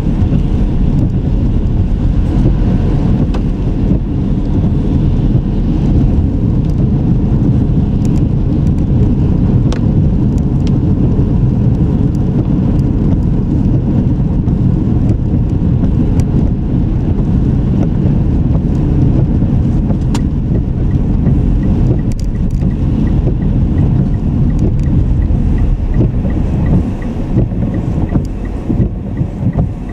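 A car being driven: a steady low rumble of road and engine noise, a little quieter and less even near the end.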